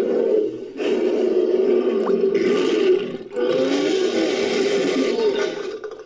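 Synthetic creature roars and growls, layered from big-cat and monster roar recordings and a human voice: about three long, rough vocalisations in a row, with pitch wavering up and down, each cut off by a brief gap.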